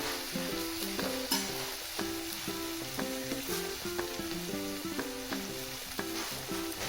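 Food frying with a steady sizzle, under light background music playing a stepping melody at about two notes a second.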